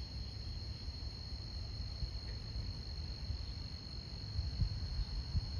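Crickets trilling in a steady, high-pitched chorus, over a low rumble with a few soft bumps late on.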